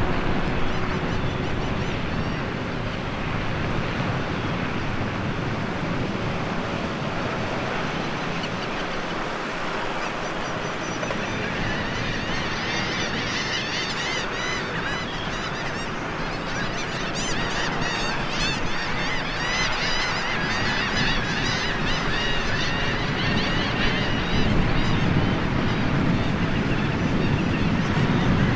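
A large flock of shorebirds, ruddy turnstones and red knots, calling in flight. Many short calls overlap into a chatter that thickens about halfway through, over a steady rush of wind and lapping water.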